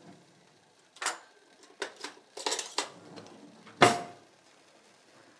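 Cookware clattering: about half a dozen separate clinks and knocks of utensils against a pot. The loudest comes a little under four seconds in and rings briefly.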